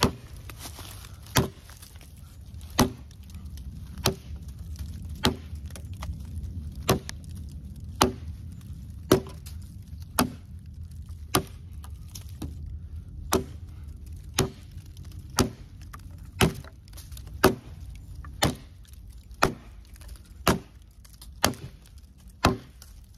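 Nedfoss 15-inch camp hatchet chopping into a dried-out, very hard branch: about twenty sharp strikes of the steel head into the wood at an even pace of roughly one a second.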